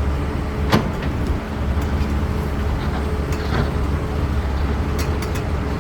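CAT 320D excavator's diesel engine running steadily, with one sharp knock about a second in and a few quick clicks near the end.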